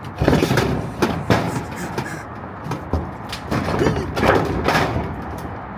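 Irregular knocks and clanks from hands-on work dismantling a shade structure, with a busier run of clatter after the middle.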